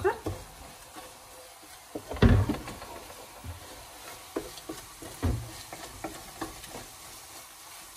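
Wooden spoon stirring and scraping tomatoes and onions frying in an aluminium pot, with a faint sizzle under it. The spoon knocks against the pot now and then, loudest about two seconds in and again about five seconds in.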